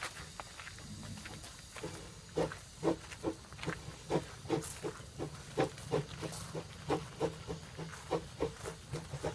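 Baldwin steam locomotive pulling away, its exhaust beats starting about two seconds in and settling into a steady chuff of about three a second that gradually quickens, over a light hiss of steam.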